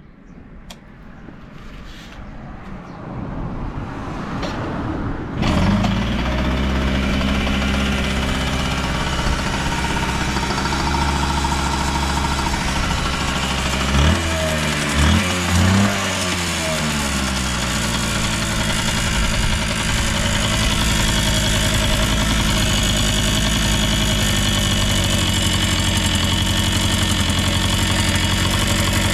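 A 1998 Yamaha YB-1's small two-stroke single engine being cold-started: a few sharp clicks and a rising noise, then the engine catches about five seconds in and settles into a steady idle. About fourteen seconds in it is blipped three times in quick succession, revving up cleanly, then it idles on with no abnormal noises, as the seller describes it.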